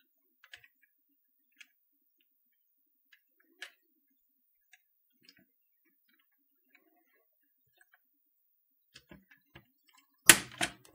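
Plastic keycaps being pressed onto the Canon TypeStar 4 keyboard's clicky SMK keyswitches: scattered faint clicks and taps, then two loud snaps near the end.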